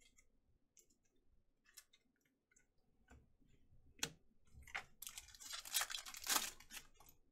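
Foil trading-card pack crinkling and tearing as it is ripped open by hand, loudest from about five seconds in, after a few light clicks of cards and packs being handled.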